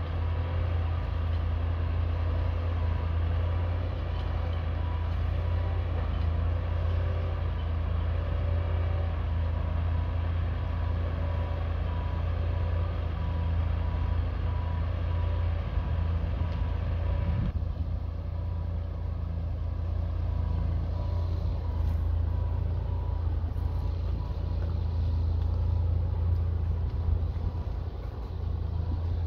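Engine of a self-propelled hydraulic boat-launching trailer running with a steady low drone as it carries a gillnetter down the ramp into the water.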